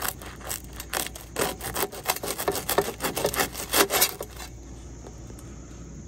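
A knife sawing back and forth through the toasted bread crust of a homemade bread pizza, a quick run of short strokes that stops about four and a half seconds in.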